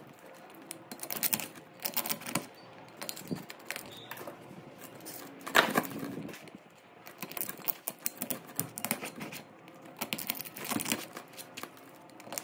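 Irregular metallic clicking and clinking of copper winding wire and hand tools being worked on an electric motor's stator, loudest about halfway through.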